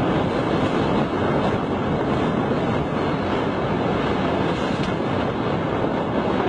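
Steady, loud rushing noise of wind buffeting the microphone, mixed with water noise.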